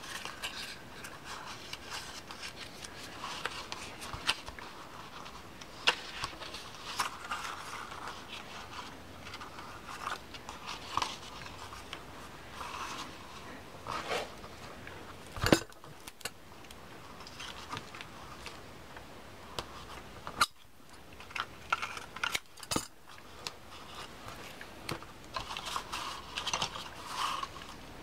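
Paper and card being handled on a tabletop: rustling, creasing and scraping of an accordion-pleated paper insert, with scattered small clicks and taps and one sharper knock about halfway through.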